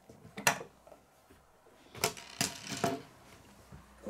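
Plastic Lego bricks being pressed and snapped together by hand: a sharp click about half a second in, then three more clicks between about two and three seconds in.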